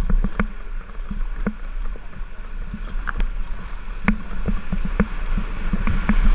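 A river rapid rushing, heard close from a plastic whitewater kayak as it paddles into white water, with frequent short splashes and knocks of paddle strokes. The rush of the rapid grows louder near the end.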